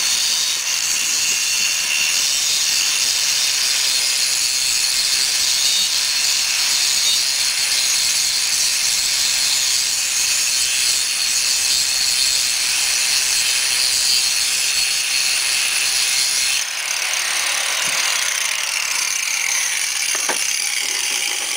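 Handheld angle grinder with its disc grinding steel: a steady, high-pitched grinding hiss over the motor's whine. About three-quarters of the way in the sound drops a little and thins out but keeps going.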